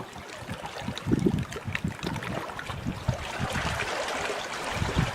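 Gusty wind buffeting the microphone in irregular low rumbles, over the rushing wash of choppy sea water that grows stronger in the second half.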